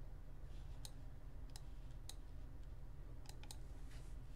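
Computer mouse clicking: about half a dozen sharp single clicks, two of them close together, over a low steady hum.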